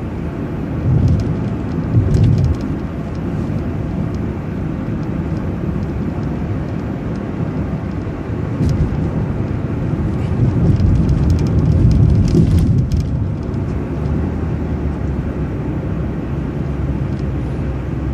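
City transit bus driving along at road speed, heard from inside: a steady low engine and road rumble that swells a couple of times, with a few light rattles or clicks about halfway through.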